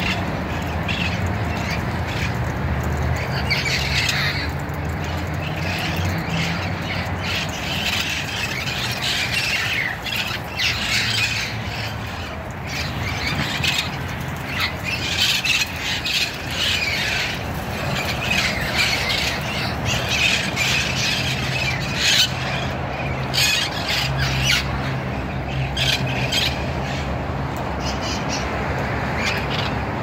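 A large flock of parrots squawking and screeching together, with many harsh calls overlapping without a break.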